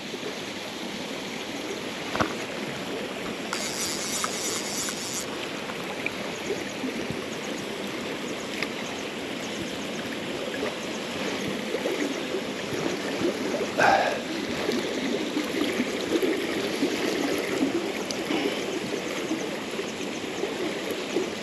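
River water flowing steadily, with a short high-pitched rattle about four seconds in and one brief louder noise about two-thirds of the way through.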